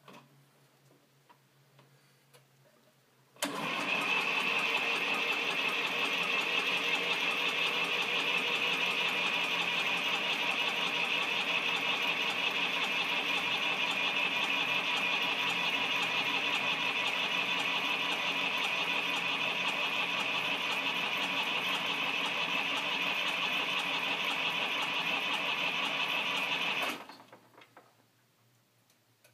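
Fordson New Performance Dexta tractor engine turned over on its starter motor, with a steady high whine. It comes in abruptly a few seconds in and cuts off sharply after about 23 seconds without the engine catching.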